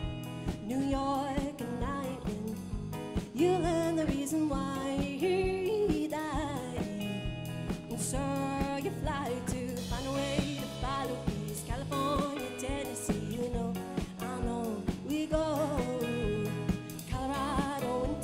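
Live alternative folk-rock band playing: a woman sings lead over strummed acoustic guitar, electric guitar and a drum kit.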